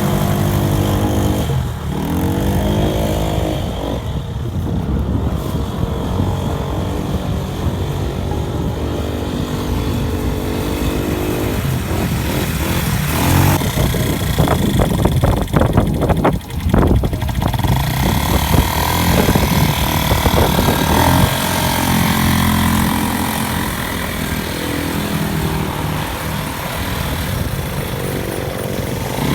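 Off-road motorbike engine running and revving, its pitch rising and falling again and again, with a spell of rapid crackling about halfway through.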